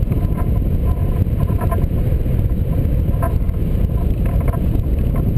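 Airflow buffeting the microphone of a camera mounted on a hang glider in flight: a steady, loud, low rumble of wind noise, with a few faint, irregular ticks.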